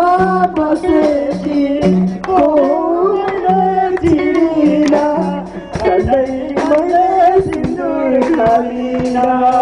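A man singing a Nepali song into a microphone over amplified music with a steady drum beat.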